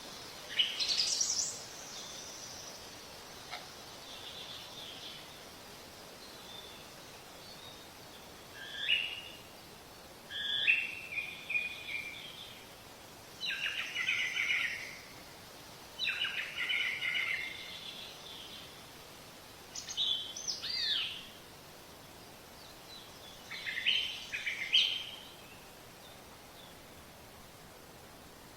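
A songbird singing short, chirping phrases every few seconds, about seven in all, over a steady faint outdoor hiss.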